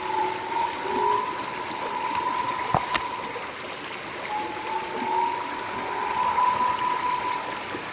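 Water running and trickling, with a steady high-pitched tone over it that drops out briefly in the middle and comes back with a slight upward slide. Two sharp clicks about three seconds in.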